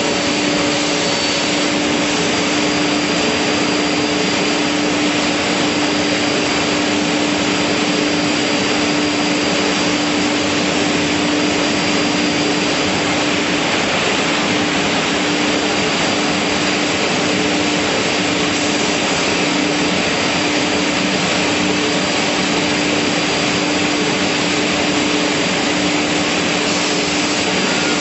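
Beam saw running during its trimming cycle, its saw motors spinning: a loud, steady, even noise with a constant hum.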